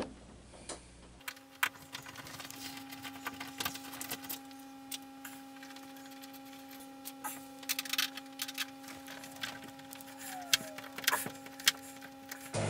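Scattered small clicks and ticks of a hand screwdriver working the screws out of a shower door track, over a steady hum.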